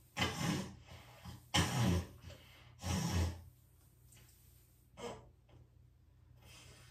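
A person's breathy vocal sounds: several short gasps and sighs, the loudest in the first half and a fainter one about five seconds in.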